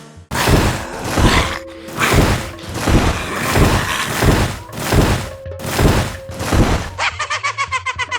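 Heavy thuds repeating about twice a second over music, then, about a second before the end, a rapid fluttering sound.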